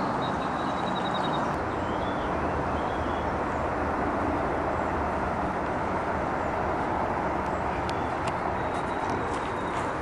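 Steady rushing hum of distant road traffic, even in level throughout, with a few faint high chirps over it.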